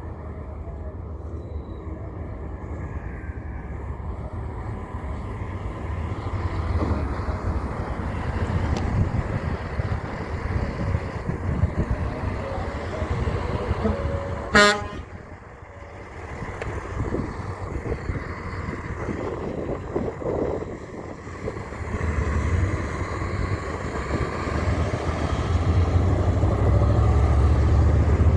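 Heavy trucks' engines rumbling as they pass, with one short, loud horn toot about halfway through. The rumble swells again near the end as another truck comes through.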